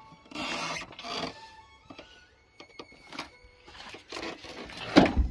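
Metal clunks and scrapes as an engine is nudged into position on its mounts, with two short scrapes early and a sharp knock about five seconds in, over music playing in the background.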